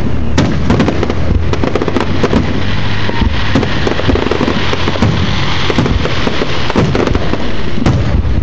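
Fireworks in a grand finale barrage: many overlapping bursts and bangs with no gaps, loud throughout.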